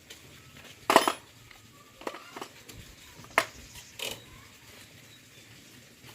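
A handful of short, sharp clinks and knocks at irregular spacing, the loudest about a second in, then a fainter pair a little after two seconds and two more between three and four seconds.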